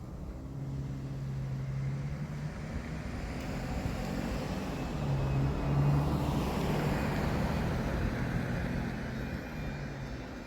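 An engine passing by: a low steady hum under a rushing noise that grows, peaks about six seconds in, and fades away.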